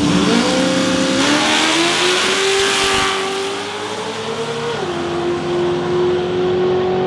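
Street cars' engines at high revs, accelerating hard down a drag strip. The engine pitch jumps up twice in the first second or so, a rush of noise swells around two to three seconds in, and the pitch drops about five seconds in.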